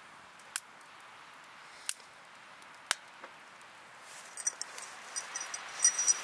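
Split firewood burning in a campfire stand, crackling with a few sharp single pops in the first three seconds, then a quicker run of crackles from about four seconds in.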